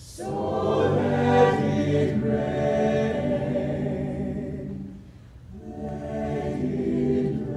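A choir singing sustained chords, dropping away briefly about five seconds in and then coming back in.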